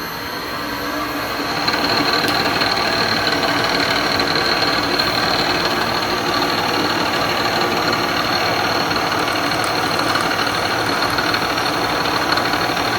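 Bridgeport milling machine running, its spindle coming up to speed over the first couple of seconds, then a steady whir with a high whine while a center drill bores a pilot hole in acetal.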